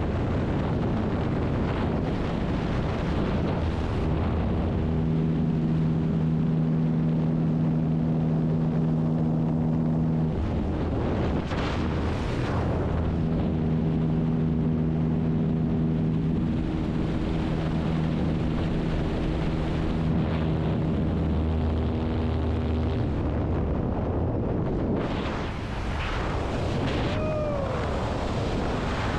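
Loud, steady wind rushing over the microphone during a skydive. A low droning of several steady tones underneath shifts pitch every few seconds, and there is a short falling whistle near the end.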